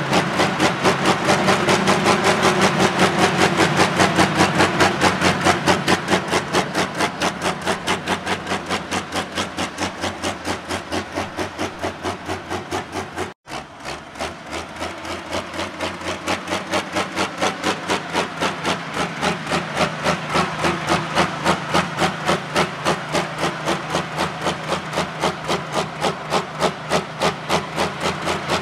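Turbocharged diesel engine of a John Deere 4640 pro stock pulling tractor running hard, with a fast, even pulsing beat and a hiss over it. The sound drops out for a moment about halfway, then carries on.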